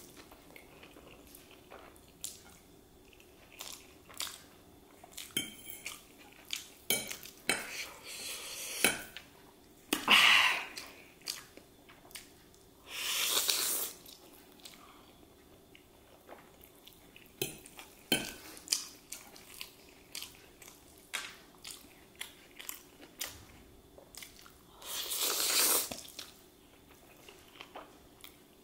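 Spicy chow mein noodles slurped off a fork in four or five loud slurps about a second long, with chewing and many short clicks of the metal fork against the plate in between.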